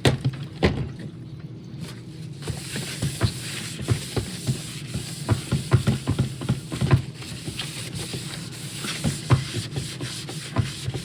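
Irregular plastic clicks, taps and rubbing as a reassembled robot vacuum is handled on a workbench, over a faint steady hum.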